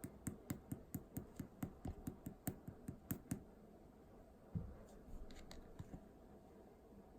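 Slime being worked by hand, giving a rapid, even run of sharp clicks, about four or five a second, that stops after three and a half seconds. A dull thump follows about a second later, then a few softer clicks.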